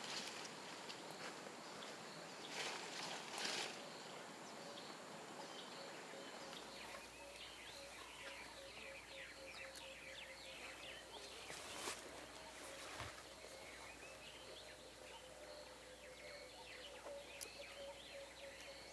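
Faint bush ambience: many small bird chirps over a faint steady trill, with some rustling in the first few seconds and a single sharp snap or click about twelve seconds in.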